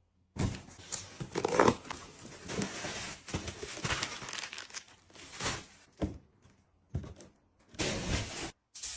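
Packaging being torn open and crinkled by hand: about five seconds of continuous rustling and tearing, then a few shorter crinkles with brief gaps between them.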